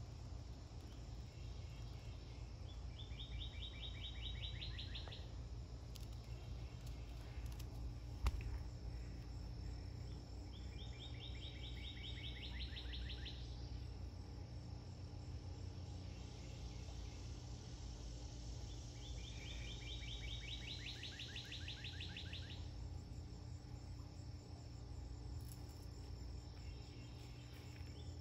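An animal's rapid trill of many short, evenly spaced notes, each bout lasting two to three seconds and coming back about every eight seconds (three times, with a fourth starting at the end), over a steady low rumble. A single sharp knock sounds about eight seconds in.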